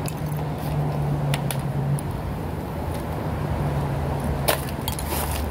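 Steady outdoor background noise with a low engine-like hum, broken by a few short sharp clicks, the clearest about four and a half seconds in.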